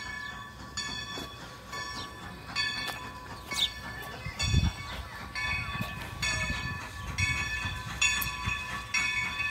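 Great Western 90 steam locomotive's bell ringing steadily, a little under two strokes a second, as the engine approaches. A low rumble from the locomotive comes in about halfway through.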